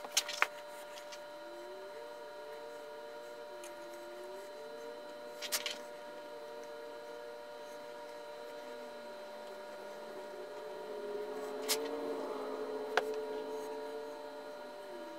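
Steady hum of several tones with a lower tone wavering slowly beneath it, and a few sharp clicks as cast metal coins and sand are handled in a PetroBond sand mold.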